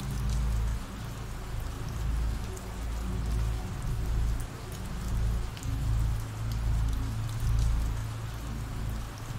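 Ambient rain recording: steady rain falling and pattering on a surface, with scattered individual drops and a low steady drone underneath.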